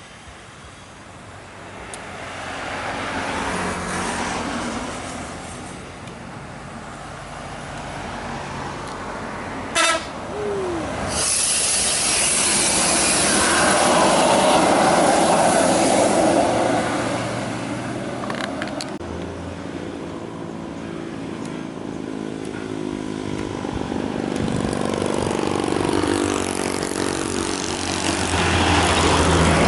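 Heavy buses passing on a winding mountain road, their diesel engines swelling and fading as they go by. About ten seconds in there is a short sharp sound, followed by a loud hiss lasting several seconds. Near the end another engine grows louder as a bus approaches.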